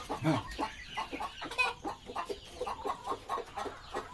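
Ayam kampung chickens clucking in a run of short, repeated calls.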